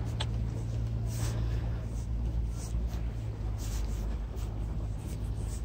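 A steady low engine hum under an even outdoor haze, with brief hissing gusts and faint distant voices.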